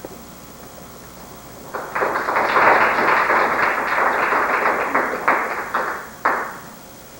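Audience applauding for about four and a half seconds, then dying away into a few last separate claps.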